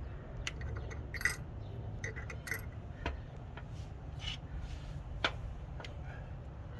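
Small metal hose clamps clinking and clicking as they are handled and slid onto a refrigerant hose: scattered light metallic clicks over a steady low hum.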